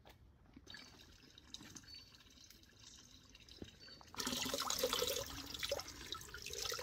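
Water running from a stone spring fountain's spout into a plastic bottle as it is filled. The splashing starts suddenly about four seconds in and is the loudest sound; before it, only faint bird chirps.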